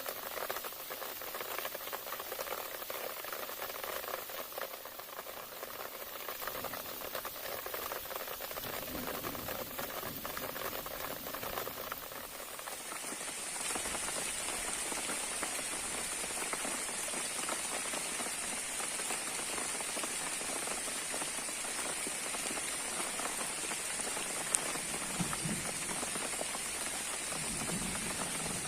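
Heavy rain falling steadily. About halfway through, the sound changes to an even, hissing downpour.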